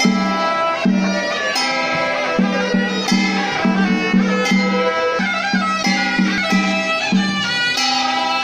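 Traditional Chinese ceremonial music played loudly: a reedy wind melody moving from note to note over a repeated lower note.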